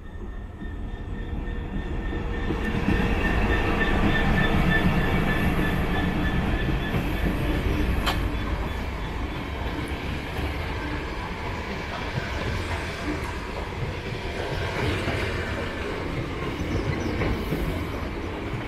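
A GBRF Class 66 diesel locomotive (EMD two-stroke V12) passes, loudest about three to six seconds in, with a few high tones over its rumble. It hauls a dead Class 465 electric multiple unit, whose wheels rumble and clatter steadily over the track as the coaches roll by, with one sharp clank about eight seconds in.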